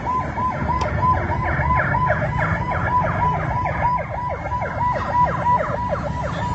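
Electronic siren sounding a rapid repeating falling sweep, about four sweeps a second, over a low background rumble.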